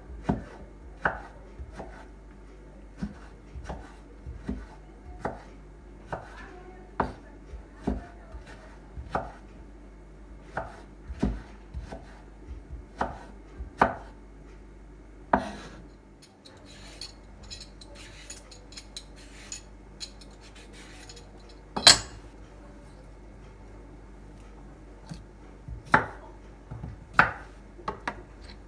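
Knife chopping on a cutting board: a run of sharp, uneven knocks, about one a second at first, then sparser after a pause in the middle, with one loud knock about three-quarters of the way through.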